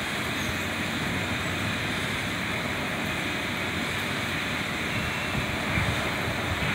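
Steady outdoor rushing noise with no distinct events, uneven low rumbling coming and going underneath.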